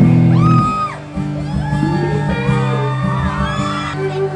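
Live band music with held bass notes, with high-pitched shouts and screams from a crowd of fans gliding over it, the first about half a second in.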